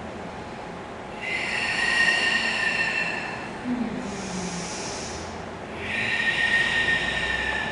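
A person breathing slowly and audibly in a yoga breathing rhythm. There are two long, loud, whistly breaths about four seconds apart, with a shorter, hissier breath between them.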